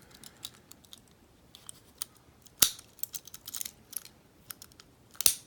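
Warded pick being worked inside a warded padlock: light metallic scraping and ticking, with two sharp clicks, one about two and a half seconds in and one near the end.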